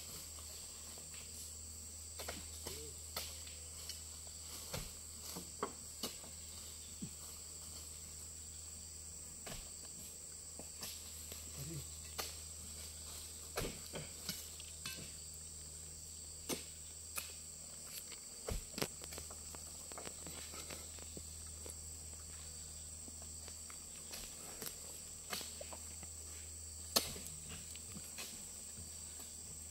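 Steady high-pitched insect chorus, with irregular knocks and thuds as oil palm fruit bunches are thrown up onto a loaded truck and stacked by hand. The sharpest knock comes near the end.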